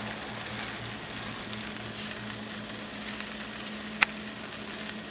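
Buttered bread slice sizzling steadily in a warm stainless-steel skillet, with a single sharp click about four seconds in.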